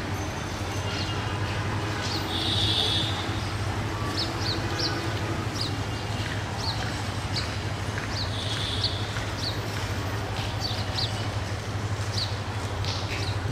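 Low, steady rumble of an approaching diesel locomotive, with small birds chirping again and again over it.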